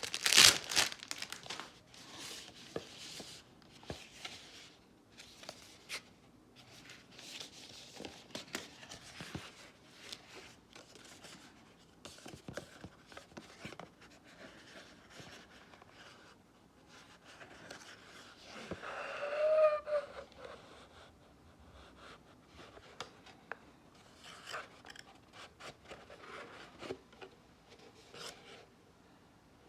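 Packaging being handled during an unboxing: intermittent rustling, rubbing and light clicks of cardboard and paper. There is a sharp click near the start and a brief squeak about two-thirds of the way through.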